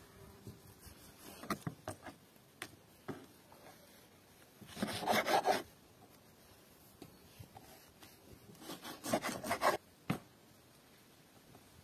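Large kitchen knife cutting raw offal on a wooden cutting board: a few light knocks of the blade on the board, and twice a rasping stretch of about a second as the blade works through the meat against the wood.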